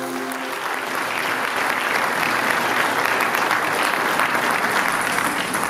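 Audience applauding steadily, with the last sustained note of an electronic intro jingle dying away in the first half second.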